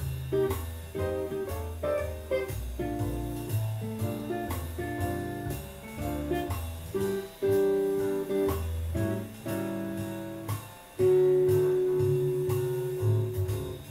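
Semi-hollow electric guitar played fingerstyle, a jazz line of single notes and chords over low bass notes, with one note held for a few seconds near the end.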